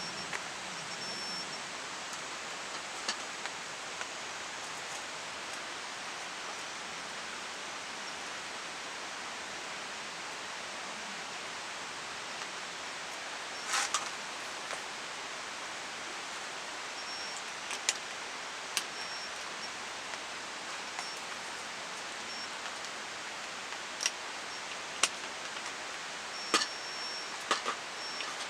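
Campfire burning, with sharp crackles and pops now and then over a steady hiss.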